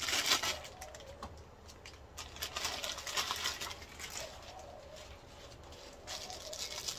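Crinkling and rustling of a plastic instant-noodle packet being handled and opened, loudest at the start and again around three seconds in. A dove coos faintly in the background.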